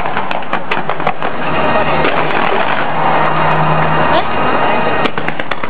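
A fireworks display with rows of comets launching in rapid volleys over the harbour: a dense crackle of many sharp pops. A steady rushing noise and a low hum run underneath, and the popping thins in the middle and picks up again near the end.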